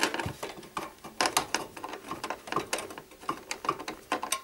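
Irregular small metallic clicks and scrapes: a screwdriver working the mounting screws of an Arctic Cooling Freezer 7 Pro tower heatsink while the heatsink is pressed down onto its mounting bracket.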